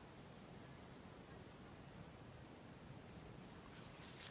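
Steady, high-pitched drone of an insect chorus of crickets or cicadas, made of several even tones that hold without a break. A brief rustle with a click comes in near the end.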